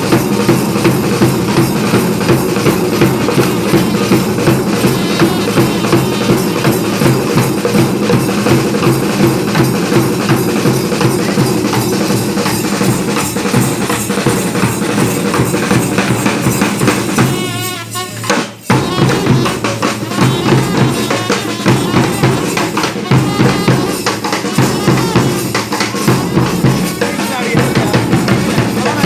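Street drum-and-brass band playing: rapid snare drums and a large bass drum beating steadily, with a trumpet over them. The drumming breaks off briefly about two-thirds of the way through, then starts again.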